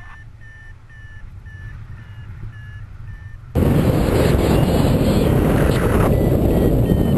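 A paragliding variometer beeping in short, evenly spaced pips at one pitch, the signal that the glider is climbing in lift. About halfway in, loud wind rushing over the microphone comes in suddenly and drowns the beeps.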